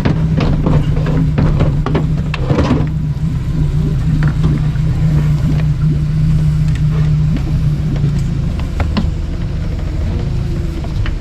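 An engine running steadily at low speed, its hum shifting lower near the end, with a few clicks and knocks in the first seconds.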